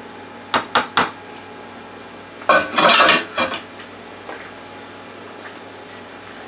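A metal spoon clinking against a stainless steel saucepan, three quick knocks, then a longer clatter of dishes about two and a half seconds in.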